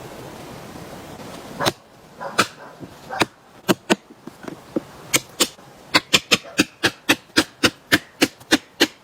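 A steady rushing noise cuts off about a second and a half in. It gives way to sharp knocks, a few scattered strikes at first, then a regular run of about three to four knocks a second.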